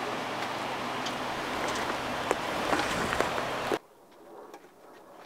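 Steady rushing outdoor noise with scattered light clicks; a little under four seconds in it cuts off sharply to a much quieter background.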